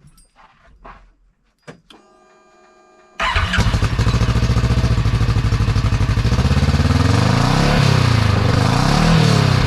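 Kawasaki KRX UTV's engine starting and running through a newly fitted GGB Trail Edition aftermarket muffler, recorded close to the exhaust outlet. After a faint steady hum, the engine catches about three seconds in, idles, and from about seven seconds in is revved up and down several times.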